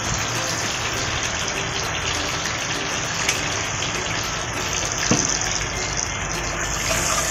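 Butter and olive oil sizzling steadily in a frying pan, with rosemary frying in the bubbling fat and the odd pop.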